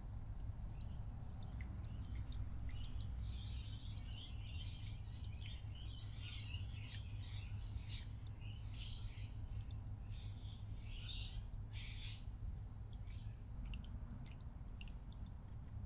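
Small birds chirping and twittering in bursts over a steady low hum, busiest in the middle and tailing off near the end.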